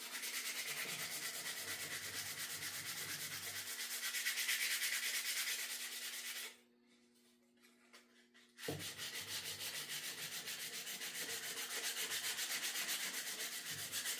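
Emery cloth rubbed by hand along a wooden axe handle in quick back-and-forth strokes, about four a second. The strokes stop for about two seconds midway, then start again.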